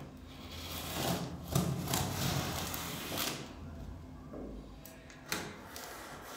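A knife cutting and scraping along cardboard, a rough rasping noise that builds about half a second in and fades after about three seconds, with a few sharp knocks of the blade and box, the last near the end.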